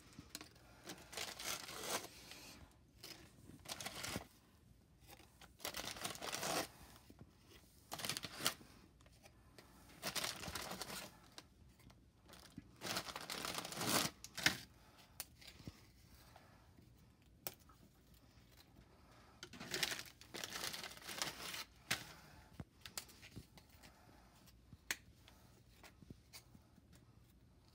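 Crinkling and rustling of a waxed-paper graham cracker sleeve in irregular bursts as crackers are pulled out and laid in the pan, with a few single sharp clicks in the later part as crackers are snapped to fit.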